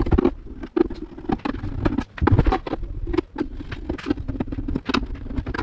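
Irregular clicks, knocks and scrapes as a small inverter plasma cutter's sheet-metal case is turned over on a workbench and a screwdriver works out the screws of its cover.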